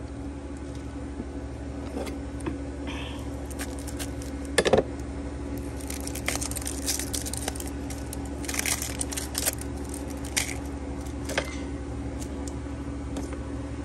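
Dry onion skin being peeled and handled: irregular papery crackles and rustles with light clicks, over a steady low hum.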